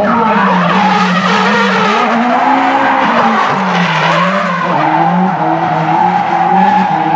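A drift car sliding through a corner, its engine revs rising and falling over and over with the throttle, over continuous tyre squeal and skidding.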